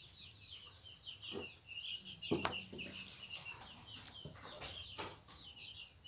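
Chickens clucking, with short high calls repeating throughout. A few sharp knocks stand out, the loudest about two and a half seconds in.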